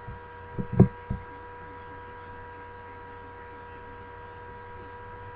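Steady electrical hum with several high steady tones over it, as picked up by a webcam microphone. A loud short thump comes just under a second in, with a smaller one shortly after.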